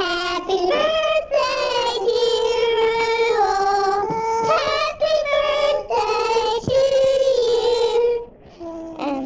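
A girl singing solo into a handheld microphone, holding long steady notes; the singing stops about eight seconds in.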